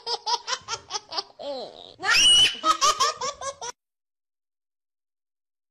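Shrill, rapid laughter: a quick run of 'ha-ha' pulses with a loud high squeal about two seconds in. It cuts off suddenly a little after three and a half seconds.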